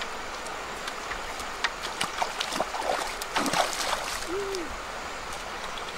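Steady rush of a swollen river, with splashing and sloshing of feet in shallow water from about one and a half to four seconds in. A single short low hoot, rising then falling, sounds about four seconds in.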